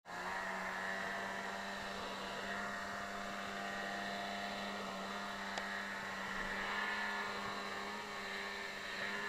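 Ski-Doo XP 800 two-stroke snowmobile engine running at a steady, droning pitch as the sled climbs across a snowy slope.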